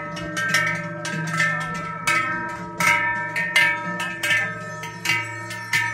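Large cowbells worn by Silvesterchläuse, clanging together in a steady swaying rhythm. There is a strike about every three-quarters of a second, and each rings on long afterwards in several tones.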